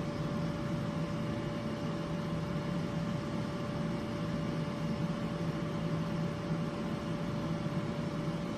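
Steady machine hum with one constant mid-pitched tone over a low drone, unchanging throughout.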